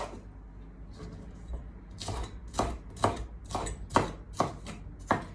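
Kitchen knife chopping bell pepper on a cutting board: a run of uneven knife strikes, about two to three a second, beginning about a second in.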